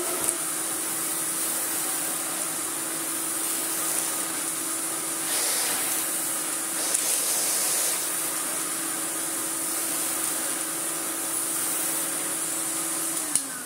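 Miele S228i canister vacuum cleaner running steadily as the floor tool is pushed over a rug: a steady motor hum under rushing air, with the suction noise swelling briefly a few times. Near the end there is a click, and the motor winds down, falling in pitch.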